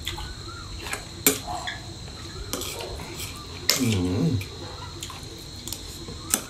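Metal spoon clinking and scraping on a ceramic plate while scooping rice, with a few sharp clinks. A short vocal sound about four seconds in.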